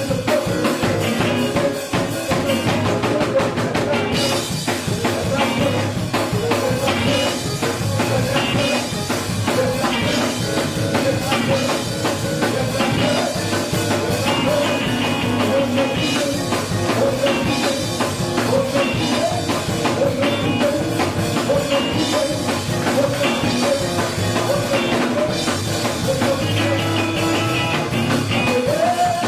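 Live band music with drum kit and guitar, with some singing, playing steadily.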